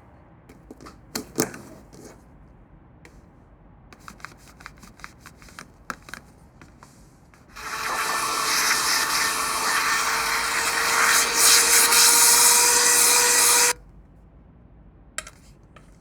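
Keystrokes on a custom mechanical keyboard with lubed Zaku linear switches and KAT keycaps: scattered single presses and a quick run of about ten keys. About halfway through, a loud steady rushing noise with a faint hum that rises slightly in pitch starts suddenly and cuts off about six seconds later.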